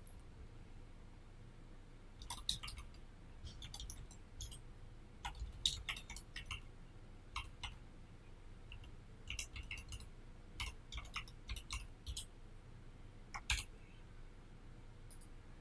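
Irregular clicks from a computer keyboard and mouse, some single and some in quick runs of a few keystrokes.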